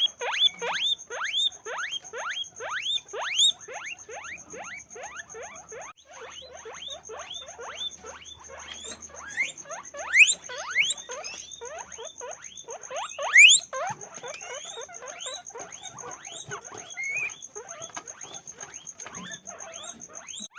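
Guinea pigs wheeking: a continuous run of short, high, rising squeaks, about two to three a second. Several calls overlap louder around the middle.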